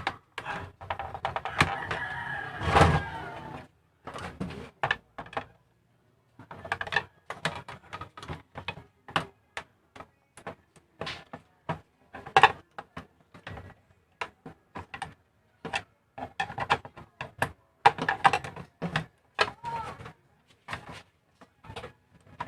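Irregular plastic clicks, taps and scraping of a flat-head screwdriver prying at the locking tabs that hold the power supply board inside an Epson L120 printer. There is a denser rattling stretch for the first few seconds, then scattered single clicks.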